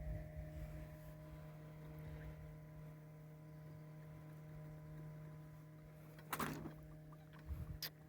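Boat motor running with a steady, even hum at one pitch. A short rushing noise comes about six seconds in, and a sharp click near the end.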